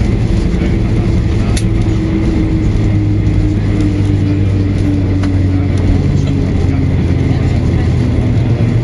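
Boeing 737-800 on its landing rollout, heard from inside the cabin: a loud, steady low rumble from the runway and engines, with a faint tone slowly falling in pitch and a few light rattles.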